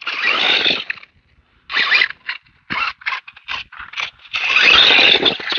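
Scraping, crunching sounds in irregular bursts: a long one at the start, a string of short ones in the middle, and a longer, louder one near the end.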